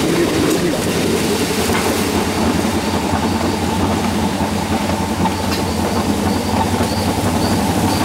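Alpine coaster cart running fast downhill on its steel tube rails: a steady rumble of wheels on the track.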